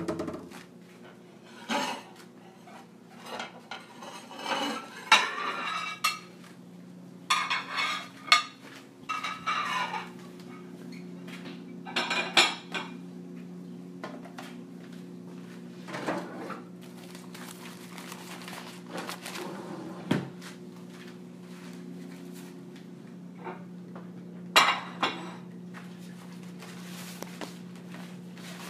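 Pots, pans and cutlery clattering and clinking in a kitchen at irregular intervals, busiest in the first ten seconds, over a steady low hum.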